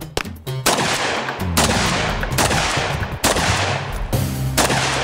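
Pistol shots fired one after another, a little under one a second, each followed by a long echo, with background music underneath.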